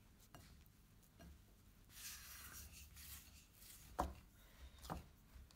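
Faint rubbing and pressing of hands kneading dough in a bowl, with two soft knocks about a second apart near the end.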